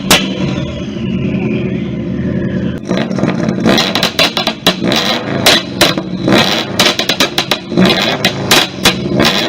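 Subaru's engine revving, the revs falling away in the first few seconds, then a rapid, irregular string of sharp exhaust pops and bangs over the running engine.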